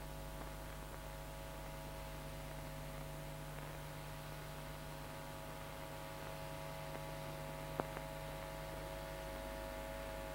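Steady electrical hum with a few fixed tones over faint hiss, the background hum of an old film soundtrack, with a single click late on.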